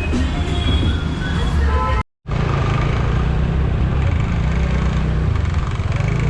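Busy road traffic: a steady low rumble of vehicle engines under street noise. It cuts out completely for a moment about two seconds in.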